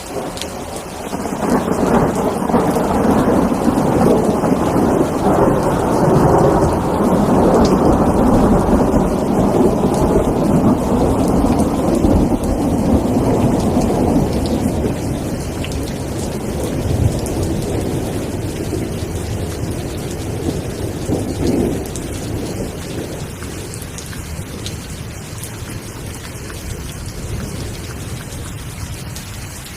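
Steady rain with a long rolling rumble of thunder that swells about a second in and slowly fades away over the next twenty seconds.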